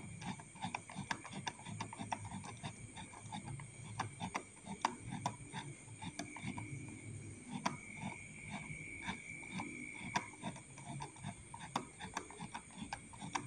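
Faint, irregular light clicks and taps, with a low croaking sound underneath.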